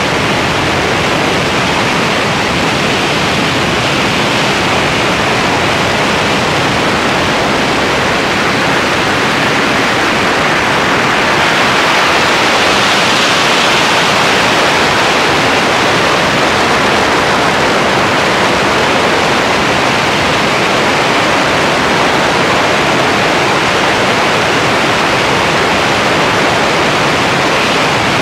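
Steady, loud rush of air over a biplane's wing in flight, buffeting the microphone, with the aircraft's engine and propeller lost in the noise. It swells a little about halfway through.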